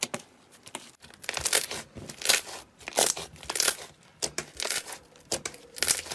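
Soft, stretchy slime being pulled and pressed, letting out a run of sharp crackling pops as trapped air bubbles burst, several a second after about a second in.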